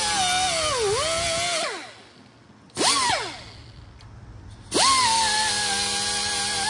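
Pneumatic air grinder whining steadily while sanding down a copper cable contact; its pitch dips about a second in. It is let off and winds down, gives one short blip near the three-second mark, then starts again and climbs quickly back to a steady whine.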